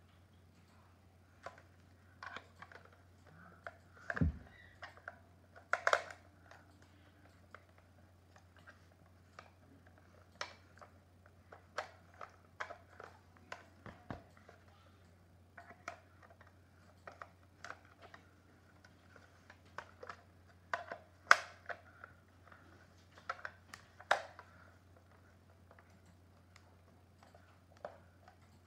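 Plastic cordless phone base station being handled and turned over by hand, giving irregular light clicks and knocks of plastic, with a few louder knocks about 4, 6, 21 and 24 seconds in.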